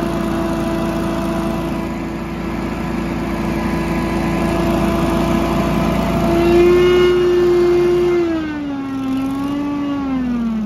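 Ferris FB1000 Hurricane stand-on leaf blower running, its fan giving a loud, steady whine over the engine. The pitch lifts a little about six seconds in, then falls away near the end as the machine slows down.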